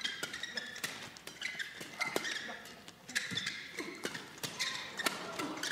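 Badminton rally: rackets strike the shuttlecock in a quick exchange, about two sharp hits a second, with short squeaks of court shoes on the floor between them.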